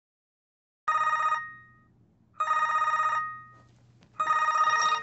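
Cell phone ringing with an electronic trilling ringtone: three rings, each a fast warbling trill, about a second and a half apart.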